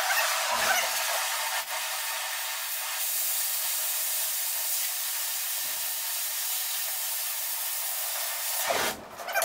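Oxy-fuel cutting torch hissing steadily as it cuts through steel plate, then shut off abruptly near the end.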